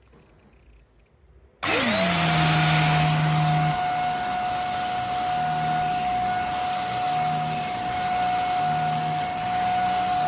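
YUFAC handheld mattress vacuum cleaner switched on about a second and a half in: its motor spins up with a quickly rising whine, then runs steadily with a high whine. A low hum under it cuts in and out every second or so.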